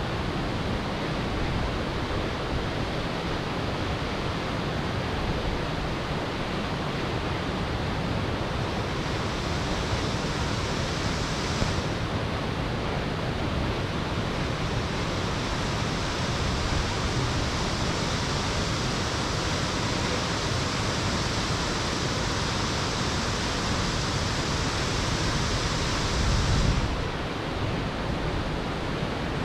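Bjarnarfoss waterfall rushing: a loud, steady roar of falling water. Its upper hiss brightens and then drops away abruptly near the end.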